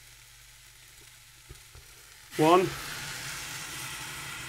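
Hot water from an electric kettle poured into a hot pan of fried rice and vegetables, hissing and sizzling steadily as it hits the pan, starting about halfway through after a couple of faint clicks.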